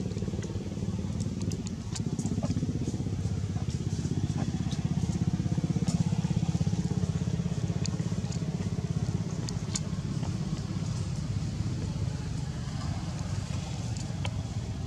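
Steady low motor hum with a fine, even pulse, louder for several seconds in the middle. Faint, scattered high clicks sound over it.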